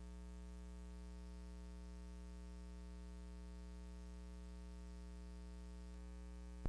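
Low, steady electrical hum with a ladder of higher overtones, unchanging: the idle hum of a sound system or recording line. A loud burst of music cuts in at the very end.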